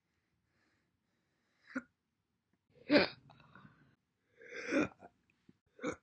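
A woman hiccupping: four separate short hiccups, the loudest two near the middle.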